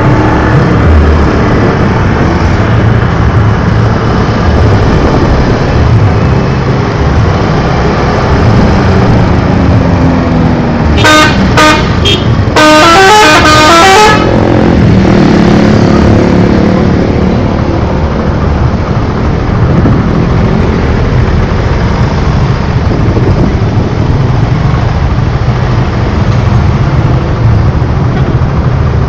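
Steady road-traffic rumble from vehicles passing on a highway. About eleven seconds in, a bus's multi-tone "telolet" horn gives three short toots, then plays a longer run of stepping notes for about a second and a half.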